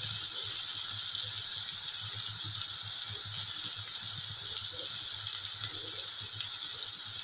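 Chopped onions and green chillies sizzling in hot oil in a kadai: a steady frying hiss with fine crackling.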